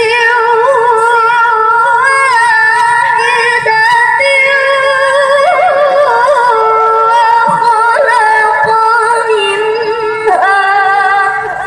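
A woman's voice reciting the Quran in the melodic tilawah style, drawing out long held notes with wavering ornaments, amplified through a microphone. The pitch steps up a little before the end.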